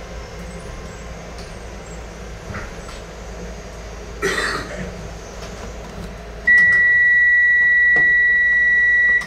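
Low steady hum of a Docklands Light Railway train standing or creeping at a station, with a short hiss about four seconds in. Near the end, a loud, steady electronic beep tone is held for about three seconds and then cuts off.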